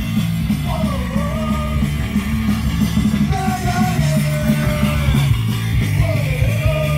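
Rock music with singing, electric guitar and a heavy bass beat.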